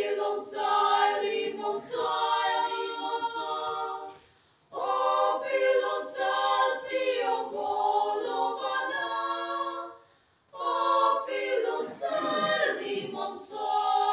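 A small women's vocal group singing a song a cappella, several voices together, in three phrases broken by two short pauses for breath.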